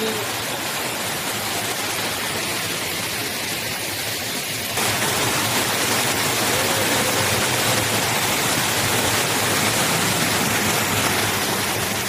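Water from an artificial waterfall cascading over a rock wall into a pool: a steady rushing hiss that gets louder about five seconds in.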